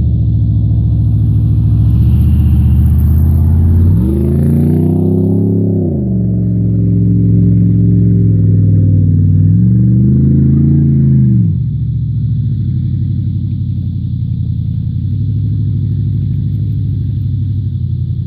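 A 4x4's engine running steadily and revving up twice, about four and ten seconds in, each rev rising, holding for a second or two and dropping back, then settling to a lower idle.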